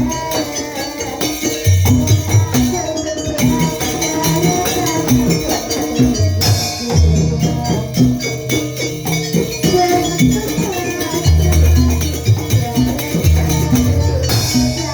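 Live Banyuwangi kluncing ensemble music: deep drum strokes come in repeated groups under sustained melodic lines, with a steady shaking, jingling percussion on top.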